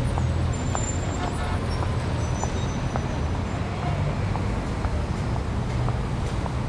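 Street ambience: a steady low traffic rumble with an even hiss, dotted with faint short ticks and thin high chirps.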